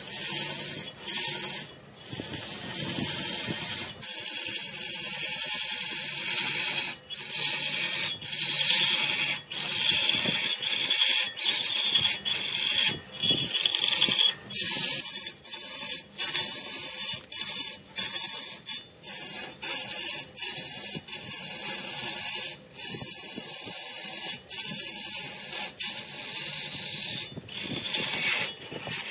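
Turning tool cutting into a redwood blank spinning on a large wood lathe: a steady, hissing scrape, broken often by brief gaps.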